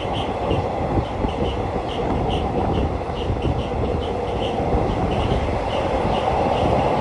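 Passenger train running on elevated track, heard from the side of the moving carriage: a steady rumble of wheels on rail with rushing air, growing a little louder near the end. Short high chirps come through several times a second.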